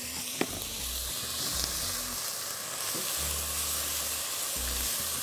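Grated onion frying in hot oil with whole spices, sizzling steadily while a spatula stirs it around the pan, with a single sharp knock about half a second in.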